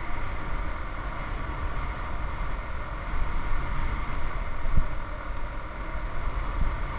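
Motorcycle engine running steadily while riding, with road noise, heard from a camera mounted on the bike.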